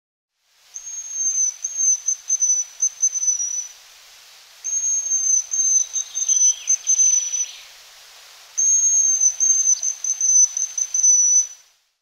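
Male hazel grouse singing its very high, thin whistled song: three phrases of about three seconds each, every phrase a string of short piercing notes that falls slightly at the end.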